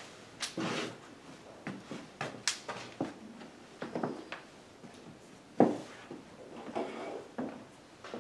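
Scattered small knocks, taps and clicks of people handling things at a meeting table, with one louder knock about five and a half seconds in.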